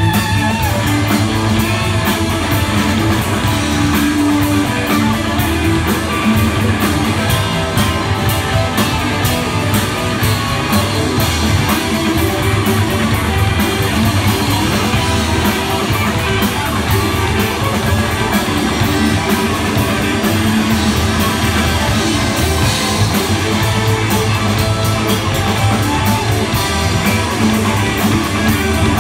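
Rock band playing live through an instrumental passage: electric guitars over bass guitar and a drum kit, with no singing.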